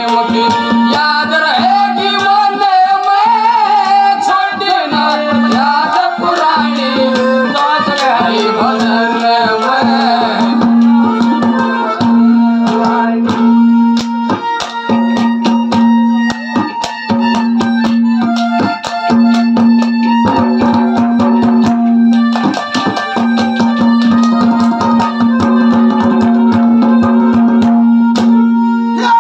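Folk ragni ensemble playing an instrumental passage: a hand drum beats a fast, dense rhythm over a steady drone note. For about the first ten seconds a wavering melody runs above it, then only the drum strokes and held notes continue.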